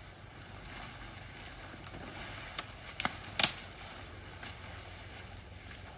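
Dry undergrowth rustling with a few sharp twig snaps, the loudest about three and a half seconds in, over a steady hiss.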